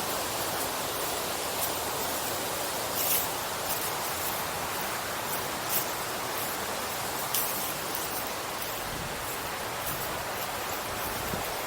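Steady rushing noise, with hikers' footsteps crunching on the trail at irregular intervals of a second or two.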